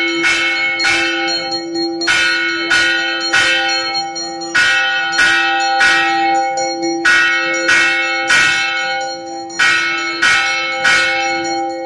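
Temple bell rung repeatedly by hand, its clapper striking about one and a half times a second in an uneven rhythm, each ring carrying on into the next.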